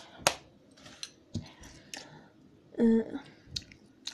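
Scattered small clicks and ticks close to the microphone, with one brief hummed voice sound about three seconds in.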